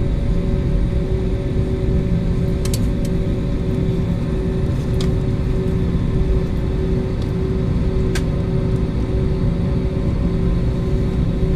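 Steady low rumble and droning hum of an airliner heard from inside the passenger cabin, with a few faint clicks.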